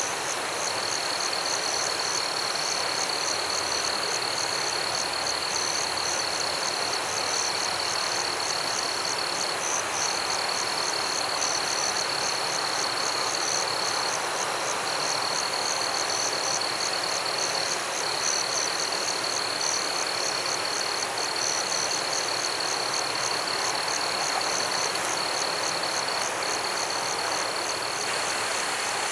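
Night chorus of frogs and insects over the steady rush of a river: a continuous high trill, broken now and then, with a fast pulsing call above it.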